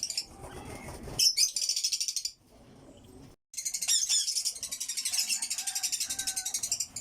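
African lovebirds chattering in runs of rapid, shrill chirps, with the longest run in the second half.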